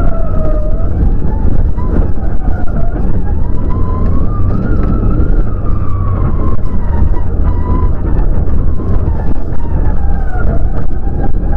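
Rally car engine heard from inside the cabin as the car is driven hard on a gravel stage, its note rising and falling with the revs over a heavy rumble from the car and the loose surface.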